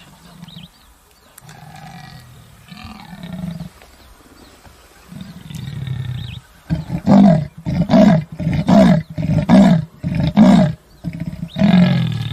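Leopard roaring: a few quieter low grunts, then a series of five loud calls about 0.8 s apart, and one longer call near the end.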